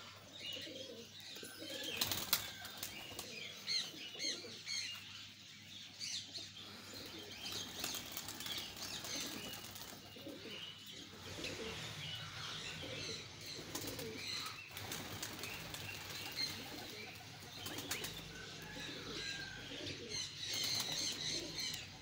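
Domestic pigeons flapping their wings as they fly up to and around a perch, with several sharp claps, while the flock chirps and coos.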